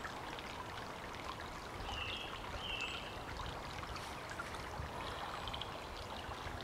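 Steady rushing background noise in woodland, with two short high chirps about two and three seconds in.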